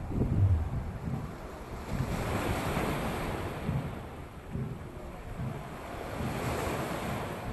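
Small waves breaking and washing over a rock seawall, the surf swelling twice, about two and six seconds in, with wind buffeting the microphone.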